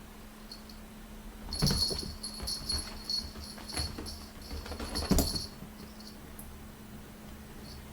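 A small bell jingling for about four seconds, broken by light clicks and two soft knocks, typical of a kitten playing with a bell toy or wearing a collar bell.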